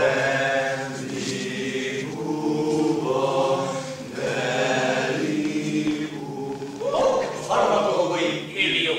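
A group of voices chanting in long held phrases over a steady low drone, the voices growing louder and rising in pitch near the end.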